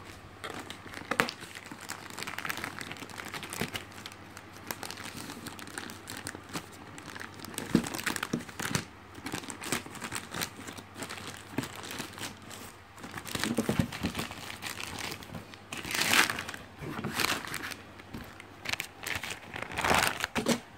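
Plastic postal satchel being torn open and handled by hand, crinkling and rustling irregularly, with several louder bursts of tearing and crackling in the second half.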